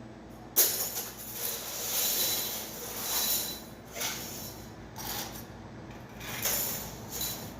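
CNC cutting machine at work: a run of irregular hissing surges, each lasting from a fraction of a second to about a second, over a steady low hum.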